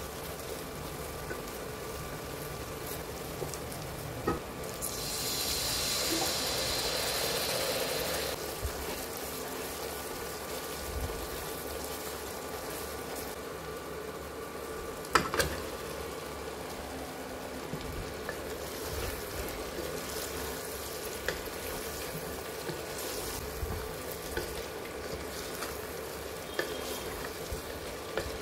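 Onions sizzling as they fry in oil in a pot, stirred with a wooden spatula. The sizzle swells for about three seconds around five seconds in, and there is a sharp knock about fifteen seconds in as fried chicken pieces are tipped into the pot.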